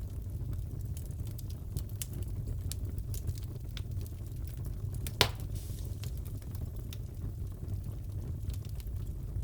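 Wood fire crackling in a fireplace: a steady low rumble with scattered small snaps, and one sharp, loud pop about five seconds in.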